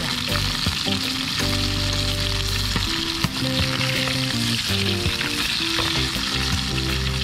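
Tilapia frying in oil in a small pan: a steady sizzle, with a few clinks of the fork and spatula against the pan. Background music with a low bass line plays underneath.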